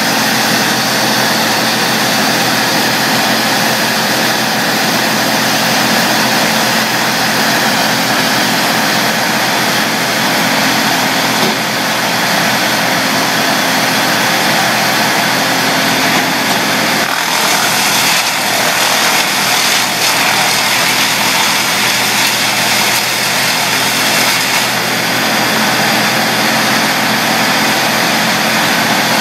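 Bandit brush chipper's engine running steadily under throttle while brush and branches are fed in and chipped. The chipping noise changes for several seconds past the middle.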